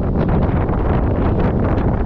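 Snowstorm wind buffeting the microphone: a loud, steady rumbling rush, strongest in the low end.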